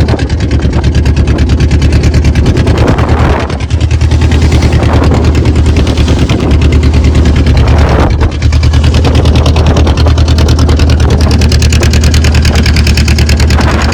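A boat's engine running steadily and loudly, with a fast, even beat, heard from close by.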